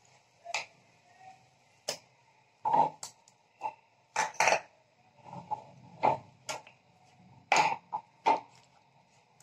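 Wooden spatula knocking and scraping against a non-stick kadai as lumps of rice-flour dough are stirred into jaggery water: irregular short knocks with quiet gaps between them.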